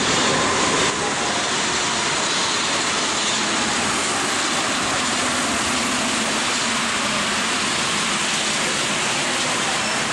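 Paris Métro train pulling into the station and running along the platform: a steady, loud train noise.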